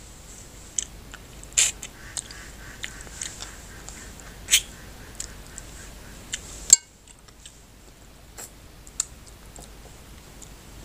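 Close-miked eating sounds from a person eating goat head curry with the fingers: wet chewing and lip smacks on meat and bone, with a few sharp clicks scattered through.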